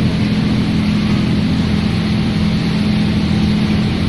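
Industrial microwave processing machine running: a loud, steady mechanical hum with a dense whir above it, unchanging throughout.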